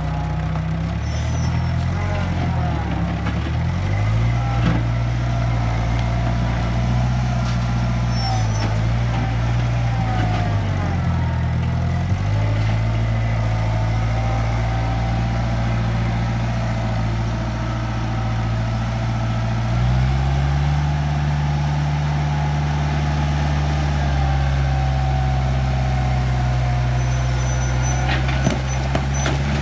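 International Harvester backhoe loader's diesel engine running under changing throttle, its pitch dipping and stepping up several times as the machine works, with a wavering whine above it and a few short knocks.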